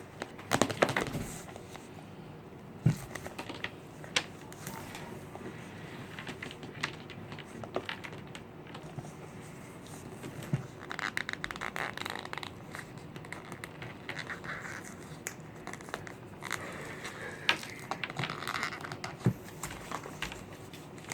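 Soft crinkling and crunching with scattered sharp clicks, from powdered cornstarch being eaten and its box being handled. Runs of rapid crunching come about halfway through and again near the end.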